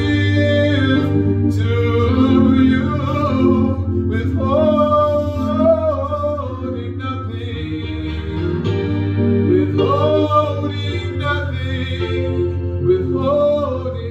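A man singing a slow gospel worship song over sustained keyboard chords, his voice rising into long held phrases several times.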